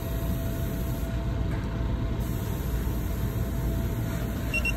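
Steady low background rumble of running machinery, with a faint steady hum and one faint short high beep near the end.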